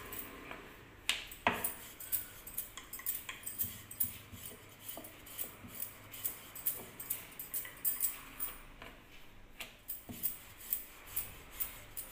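Wooden rolling pin rolling out chapati dough on a wooden board, with light clicks and clinks, about two to three a second, in time with the back-and-forth strokes.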